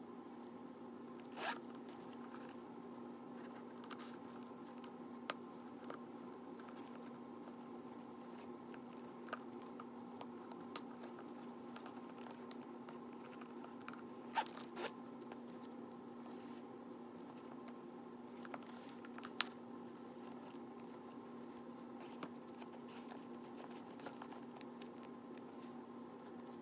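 Metal zippers on a Coach Noa Pop-Up Messenger leather bag being worked by hand: short zipping rasps and scattered light clicks of the metal hardware, over a steady low hum.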